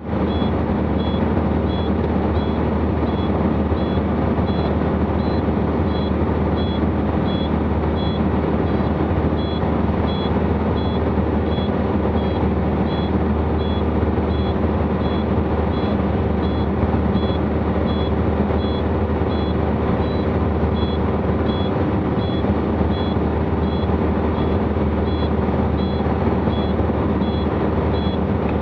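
Single piston engine and propeller of a light aircraft running steadily, heard inside the cockpit as a loud drone, with a short high-pitched beep repeating about once a second.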